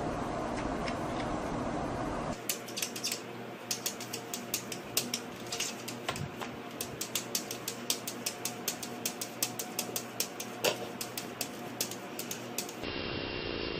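A kitten's claws tapping and clicking against a mirror as it paws at its reflection: quick, irregular clicks, several a second, starting a couple of seconds in and stopping shortly before the end. Before the clicks there is a steady noise.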